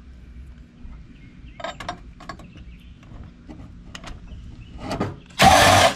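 Scattered light metal clicks and clinks of hand tools working screws out of an old PC motherboard, then a loud rasping burst of about half a second near the end.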